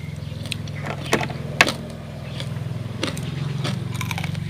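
People chewing food, with a few sharp clicks of crunching or mouth sounds, over a steady low motor hum.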